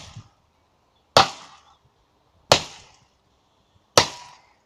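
Chopping blows into a tree trunk with a blade, three sharp strikes about a second and a half apart, each with a short splintery ring.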